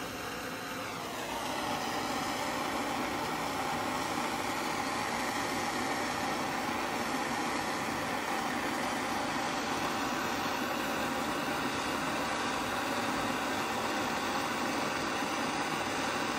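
Handheld gas torch lit about a second in and then burning steadily, its flame heating a brass tube to anneal it.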